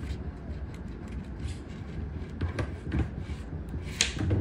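A coin scraping the silver coating off a paper scratch-off lottery ticket: a run of short, scratchy strokes, with one sharper stroke near the end.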